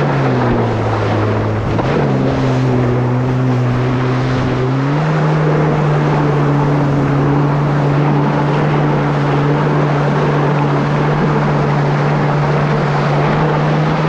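Kawasaki SX-R 1500 stand-up jet ski's four-stroke four-cylinder engine running under way, over a steady rush of wind and water. The engine note drops briefly at first, climbs back about two seconds in, steps up again about five seconds in, then holds a steady pitch.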